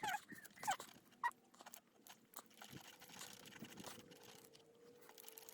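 Pancake batter being stirred in a bowl: soft, irregular scraping and tapping, with a brief high animal call about half a second in.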